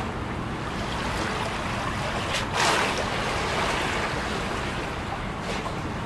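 Small harbour waves lapping and splashing against a concrete quay wall, a steady wash of water with one louder splash about two and a half seconds in.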